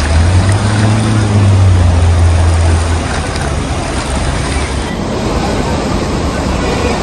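Traffic driving through a flooded road: a vehicle engine hums low for the first three seconds over a steady rush of water and road noise, which carries on after the engine fades.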